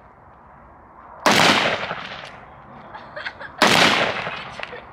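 Two gunshots from a shouldered long gun, a little over two seconds apart, each a sharp crack that trails off in a long echo.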